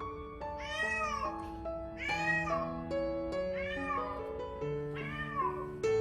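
Stray cat in heat calling loudly: four long, drawn-out meows that rise and fall, about one every second and a half. Background piano music plays under them.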